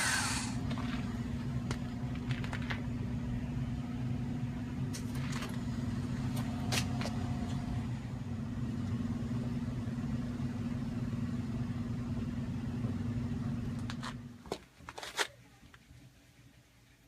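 A steady low motor hum that cuts off about fourteen and a half seconds in, followed by a few light clicks.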